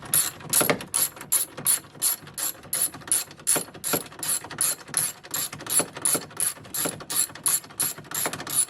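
Hand ratchet wrench clicking steadily, about four to five clicks a second, as it is swung back and forth to run a bolt in.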